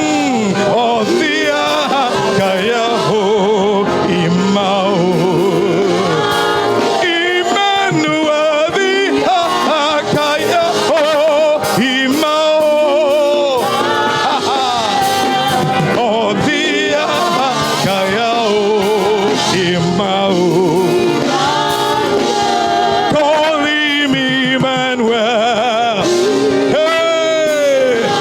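Gospel worship music: singing with vibrato over a steady instrumental backing.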